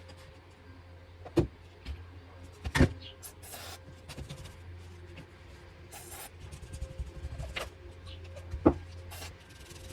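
Small engine parts being handled and cleaned on a workbench: sharp knocks and clicks of metal and tools, a few short hisses, over a low steady hum.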